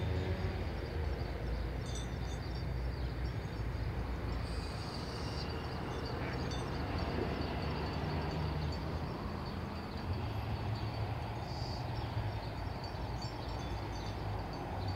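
Steady outdoor background noise: a low rumble that swells and fades under an even hiss, with a faint steady high tone. No clear sheep bleats stand out.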